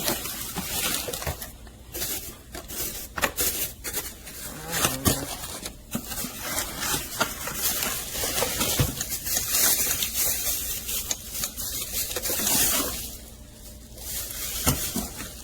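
Handling noise: irregular rustling and crinkling with knocks and clicks, as a small space heater is taken out of its packaging and handled.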